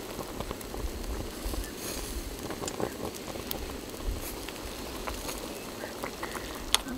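A spoon ladling wet stewed chicken and vegetables into a hollowed bell pepper: soft wet sloppy sounds with scattered small clicks, and one sharper click near the end.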